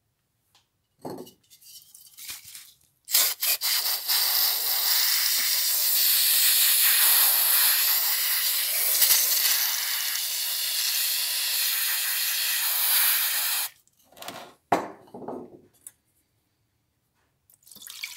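Aerosol engine degreaser sprayed onto the metal parts of a hand plane in a plastic tub: a few short spurts, then one steady hiss lasting about ten seconds. Brief clatters of handling come before and after the spray.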